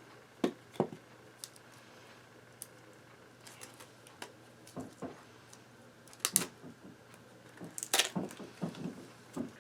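Scattered plastic clicks and taps from handling a DSLR camera body, with the sharpest clicks a little after six seconds and a cluster around eight seconds.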